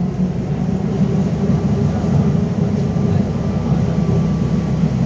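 Interior noise of a LiAZ-5280 trolleybus under way, heard from the passenger cabin: a steady low rumble.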